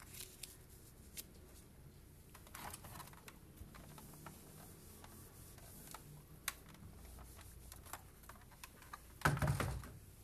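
Faint handling noises as a paper template is placed on fabric and an iron presses on a padded pressing board: small clicks and scratchy rustles, with a louder thump near the end.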